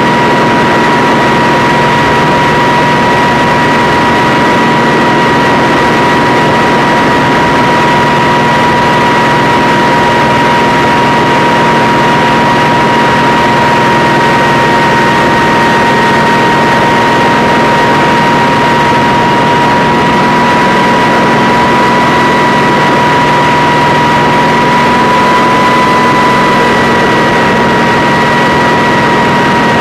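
Kamov Ka-26 helicopter with twin radial piston engines running steadily and loudly, a high steady tone riding over the engine noise. The tone's pitch rises slightly near the end.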